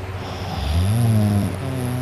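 A teenage boy snoring: a pitched snore starts about half a second in, rises and then falls in pitch, and is followed near the end by a shorter, steadier snore tone.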